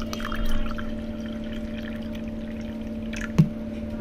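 Juice poured into a steel tumbler, splashing and frothing over a steady low hum, with one sharp clink about three and a half seconds in.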